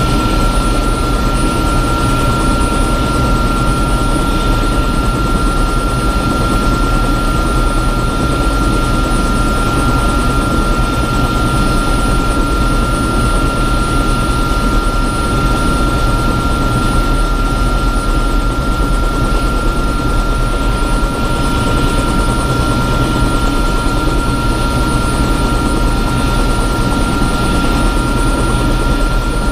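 Bell 206 JetRanger's Allison 250 turboshaft engine and rotor running steadily on the ground, heard from inside the cabin: a constant high turbine whine over a low, even drone, with no change in pitch or level.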